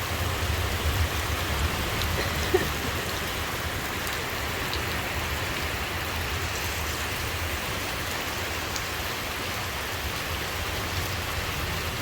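Steady rain falling, with one short sharp tap about two and a half seconds in.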